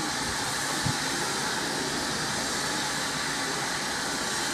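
Steady hiss of steam from standing steam locomotives, SECR C class No. 592 coupled with No. 263, with a single dull knock about a second in.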